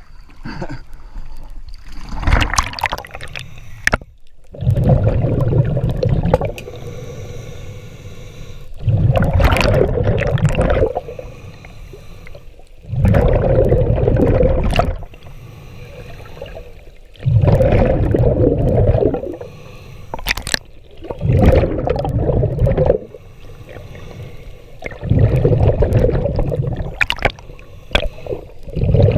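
Scuba diver breathing through a regulator underwater: a rush of exhaled bubbles gurgling for about two seconds, repeating about every four seconds with quieter inhalations between.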